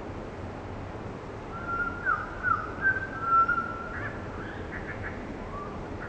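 Bird calls over a steady background hiss: about one and a half seconds in, a run of clear whistled notes, several of them sliding down in pitch, then a quick series of short chattering notes near the end.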